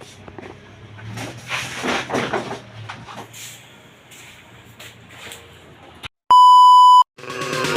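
A single loud, steady electronic beep tone lasting under a second, about six seconds in, with dead silence either side of it; before it, faint clicks and rustling, and near the end music with a heavy beat comes in.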